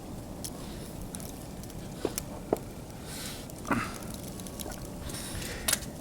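Footsteps in fresh snow over a steady hiss, with a few sharp clicks and one short squeak a little under four seconds in.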